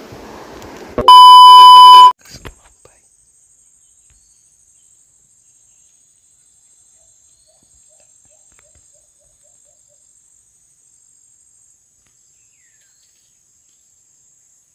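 A loud, steady electronic beep lasting about a second, starting about a second in. After it there is only a very faint, high, even buzz.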